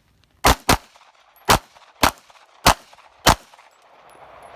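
Six pistol shots from a Glock 17 Gen5 in 9×19 mm: a fast pair, then four more shots spaced a little over half a second apart.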